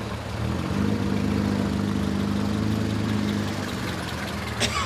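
Ford Model A roadster's four-cylinder side-valve engine running at low speed as the car drives past close by; the low, steady engine note fades out about three and a half seconds in. A sharp click comes near the end.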